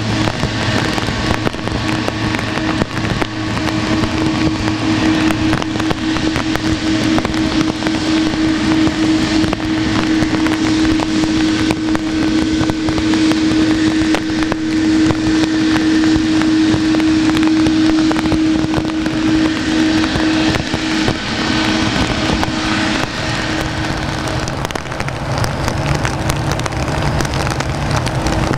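Boeing 777-300 jet engines at taxi power: a steady whining hum over the hiss of heavy rain. Near the end the whine weakens and a lower hum comes in.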